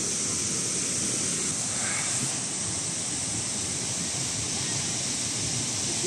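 Steady, unbroken rush of water falling at a waterfall.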